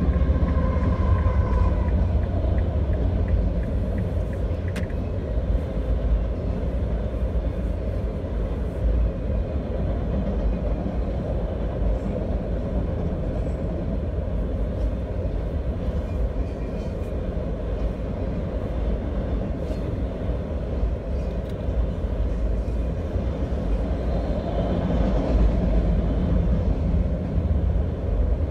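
Freight train of enclosed autorack cars rolling past on the rails: a steady low rumble of wheels on track that holds at an even level.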